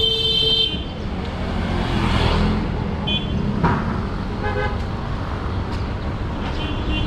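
Busy city street traffic with vehicles passing, one about two seconds in. Short horn toots sound several times, the loudest right at the start.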